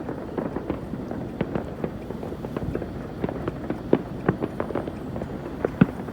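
Many fireworks and firecrackers going off at once in an irregular crackle of pops and bangs, with a few louder cracks about four seconds in and near the end.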